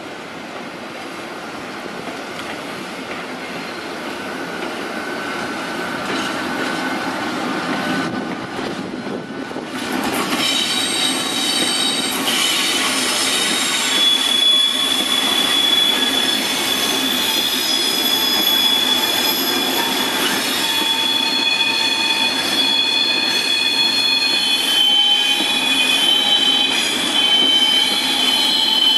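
Freight train of covered wagons hauled by an SNCF BB 26000 'Sybic' electric locomotive rolling past, growing louder as it approaches. From about ten seconds in, the wagon wheels squeal in several sustained high tones over the rumble of the passing train.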